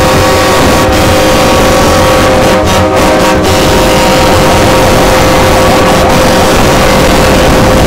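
Vehicle engine running very loud at steady revs, one held pitch without rising or falling.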